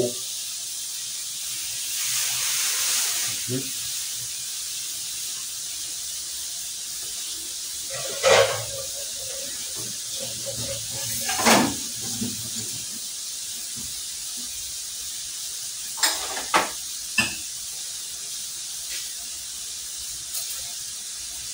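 Steady hiss of a wok of water heating on a high gas burner, louder for a second or so about two seconds in, as the fish goes into the water. A few short clatters break in later.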